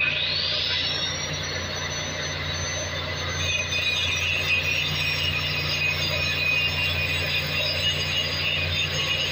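Electric angle grinder spinning up with a rising whine, then grinding metal with a loud, high, wavering whine from about three and a half seconds in, working on a cracked main-engine exhaust valve housing. A steady low hum runs underneath.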